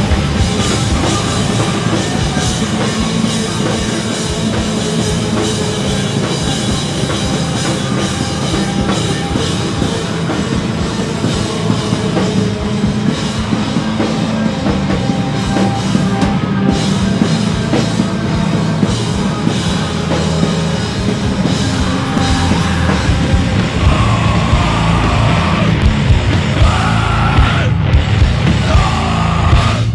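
Loud heavy metal music from a band: distorted electric guitars, bass and a pounding drum kit playing without a break.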